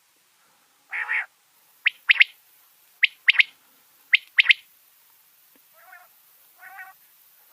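Male quail crowing: a rough call, then three calls about a second apart, each a sharp short note followed by a quick doubled note. Softer, lower calls follow near the end.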